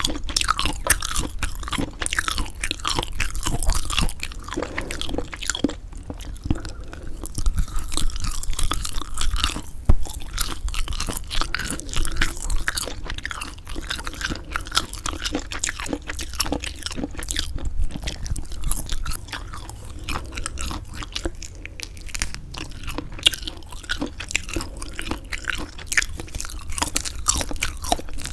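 Close-miked chewing of semi-dried squid: continuous wet, rubbery chewing full of small crackles and clicks, with a few brief pauses between mouthfuls.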